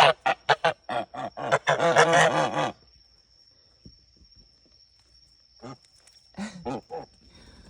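A gander (male domestic goose) honking in a rapid run of short calls for the first few seconds, then a few more calls near the end.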